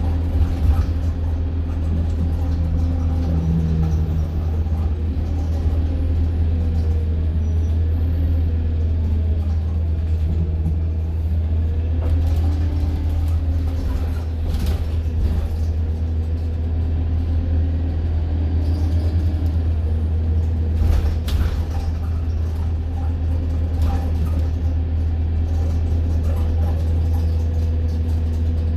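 Heard from inside a double-decker bus on the move: a steady low engine and road drone. The engine and drivetrain tone rises and falls several times as the bus speeds up and slows. A few short knocks come from the body, around halfway through and again later.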